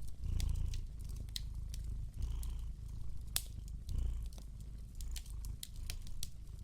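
A domestic cat purring steadily, swelling about every two seconds with its breaths, over the sharp pops and crackles of a wood fire.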